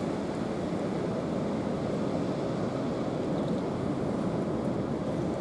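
Steady rushing outdoor noise of wind and sea surf, even throughout with no single sound standing out.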